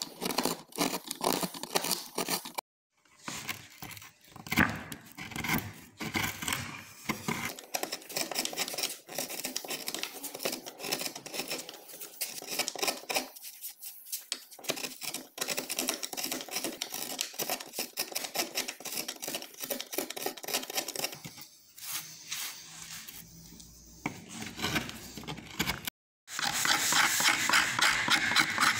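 Hand gouge and hook knife carving olive wood: a rapid series of short scraping, tearing cuts as chips shave off. There are brief breaks about three seconds in and near the end. After the second break the cuts are louder and brighter.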